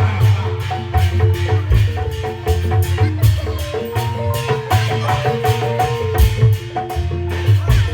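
Lively music: a fast melody of short mallet-struck notes over a heavy, steady bass and regular drum hits.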